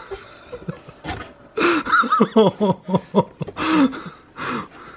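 A man laughing: a quick run of short 'ha' bursts starting about a second and a half in, then two longer laughs near the end.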